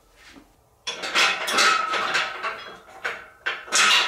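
Steel squat handle being worked into the holes of a steel power-rack upright: metal-on-metal clanking and clattering, quiet for the first second, then a dense run of clanks with a faint ring, and two sharper knocks near the end.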